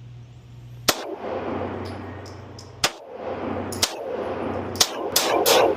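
Handgun shots at a range: six sharp reports at uneven spacing, the last three close together near the end. Each is followed by a reverberant echo.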